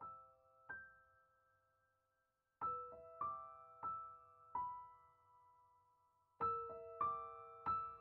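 Quiet, slow piano music: single notes played in short groups of two to four, each note left to ring and fade, with gaps of silence between the groups.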